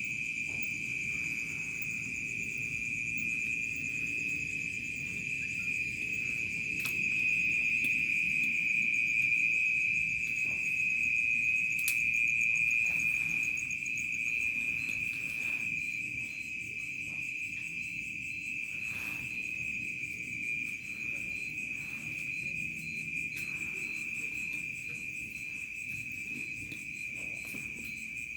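Crickets chirring in a dense, continuous high-pitched chorus that never breaks, slightly louder for a few seconds around the middle, with a fainter rapid pulsing trill above it.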